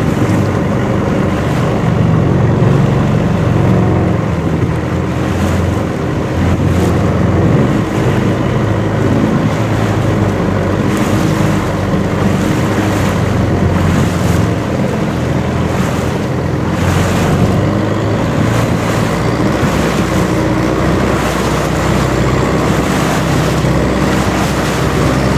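Long-tail boat's engine running steadily and loudly while under way, heard from aboard, with the rush of water along the hull.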